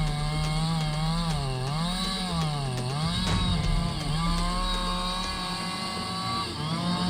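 Chainsaw engine running at high revs, its pitch dipping and recovering several times, as a saw does when it bogs in a cut.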